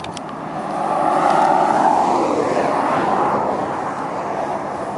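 A vehicle passing by: a rush of noise that swells about a second in, peaks around two seconds and fades away.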